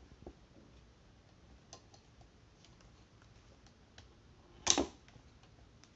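Small scattered clicks of plastic parts being handled, with one louder knock about three-quarters of the way through, as a phone is fitted into a ring light's phone holder and stand.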